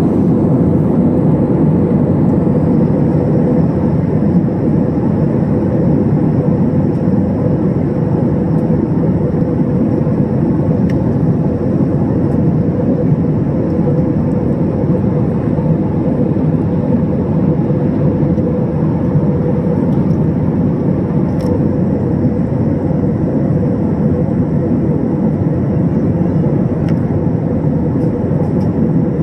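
Steady cabin noise of an airliner in flight, heard from a window seat over the wing: an even rumble of engines and rushing air with a steady low hum and a faint high whine.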